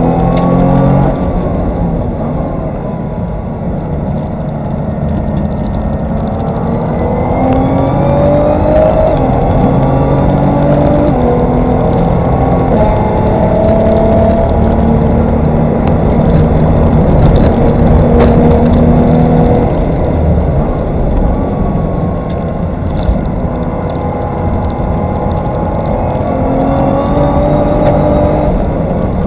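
Race-prepared Nissan GT-R R35's twin-turbo V6 with an aftermarket exhaust, heard from inside the car under hard track driving. The engine note climbs in pitch through the gears, breaks at each quick upshift, and falls away as the car slows for corners.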